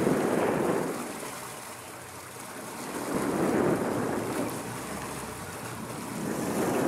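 Rushing wind and water noise aboard a moving sport-fishing boat, with the churning wake and wind on the microphone, swelling and easing about every three and a half seconds.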